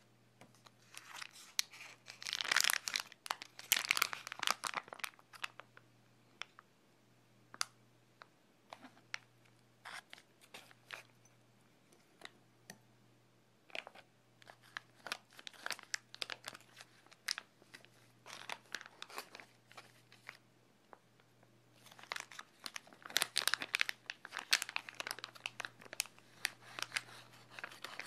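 Clear plastic pickle pouch crinkling and crackling as it is squeezed and shaken to empty it, in three spells of crackling with scattered sharp clicks between.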